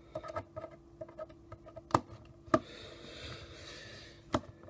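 Small clicks and taps of hands handling a camcorder's plastic body and tiny screws just taken out of it, with two sharper clicks about two seconds in and another near the end, and a soft rustle between them.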